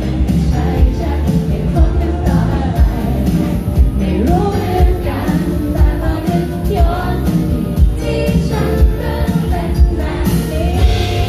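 Live pop band performance with a woman singing lead into a microphone over electric guitar and a steady beat.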